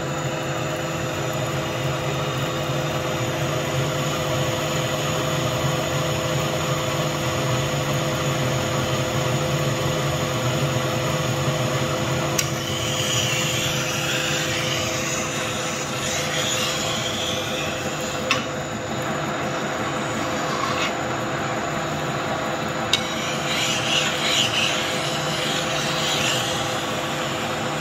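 Okuma metal lathe running and turning a steel bar with a carbide tool: a steady machine hum with a couple of held tones. A scratchier cutting sound comes and goes midway and again near the end, with a few sharp clicks.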